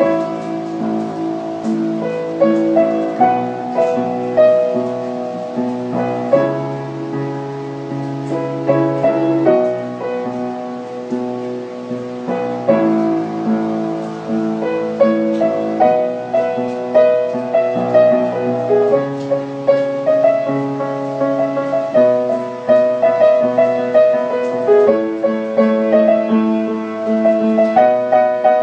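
Background music: a gentle solo piano piece, chords with a melody above them, playing steadily.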